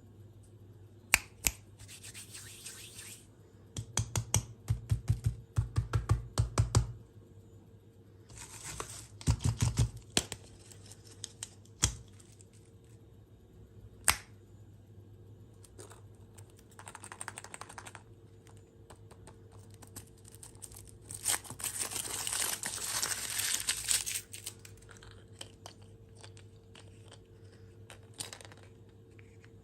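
Plastic packaging being crinkled and torn in several bursts, the longest about three-quarters of the way through, with clusters of sharp clicks and taps in between.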